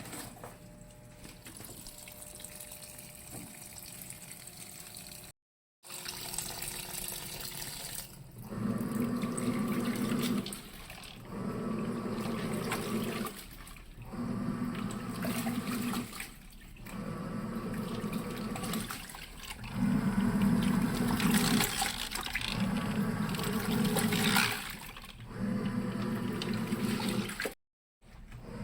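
TAIGA 5 kg fully automatic mini single-tub washing machine washing a load: the motor drives the pulsator in bursts of about two seconds with short pauses between, water churning in the tub.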